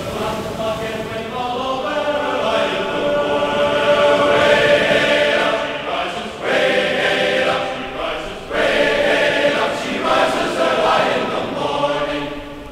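A choir of voices singing together, dropping away near the end.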